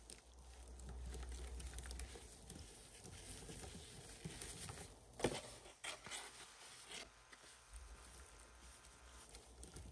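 Pink cleaning powder sprinkled onto wet, soap-covered sponges: soft pattering and crackling as the clumps land, with one sharper tap about five seconds in.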